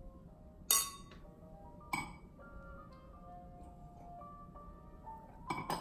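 Red wine glasses clinking together in a toast: a sharp glassy clink about a second in and another ringing clink near two seconds, with a few more light knocks near the end. A soft melodic tune of background music plays throughout.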